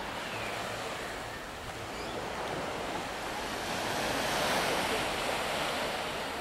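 Steady rush of small waves washing onto a sandy beach, with wind buffeting the microphone; the rush swells a little just past the middle.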